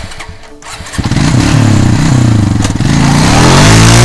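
ATV engine revving as the quad pulls away, starting loud about a second in, its pitch dipping and then climbing.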